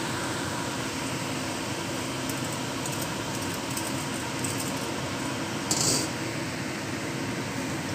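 Steady hiss of leafy greens and bean sprouts cooking in a hot wok, with a few faint crackles and a brief louder hiss about six seconds in.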